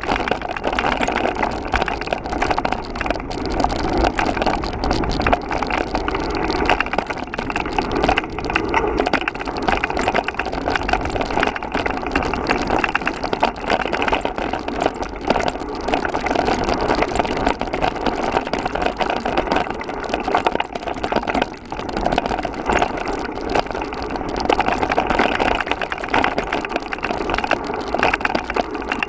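Trek Roscoe 7 hardtail mountain bike ridden over a rough dirt trail: steady rattle and clatter of the bike and its wide tyres over dirt, stones and bumps, over a low rumble of wind.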